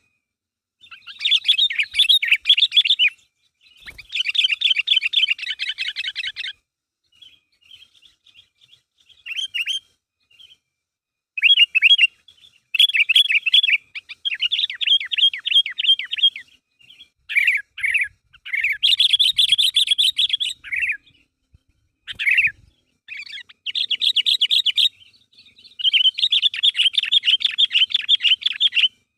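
Sooty-headed bulbul (kutilang) chattering in fast runs of rapid notes, each run lasting one to three seconds with short pauses between them, and a sparser stretch of short, isolated calls about a third of the way in.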